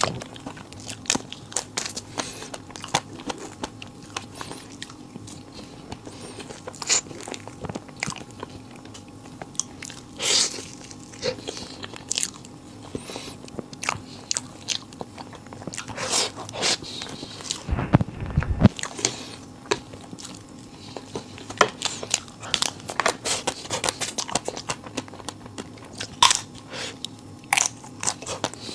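Close-miked eating sounds: a long run of crunchy bites and chewing, with a single low thud about two-thirds of the way through.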